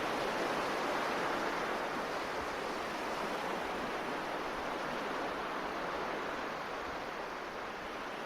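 Steady, even rushing noise with no tune, beat or voice, like surf or hiss, holding level and easing off slightly towards the end.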